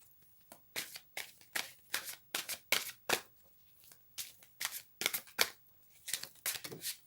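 A deck of oracle cards being shuffled by hand, a quick series of crisp card flicks and slaps about twice a second, with a brief pause a little past the middle.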